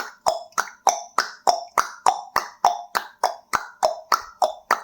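Table tennis sound effect: a steady rally of ping-pong ball pocks, evenly spaced at about three and a half a second.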